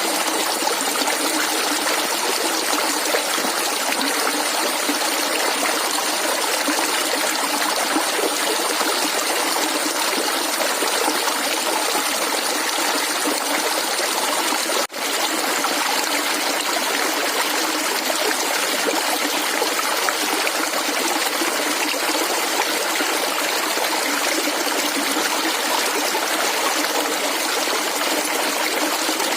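Clear running water gurgling and trickling steadily, with a momentary dropout about halfway through.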